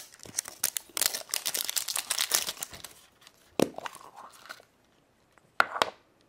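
Wrapper from a surprise egg's contents crinkling and tearing as it is opened by hand, dense for about three seconds, then a few separate crackles and clicks near the end.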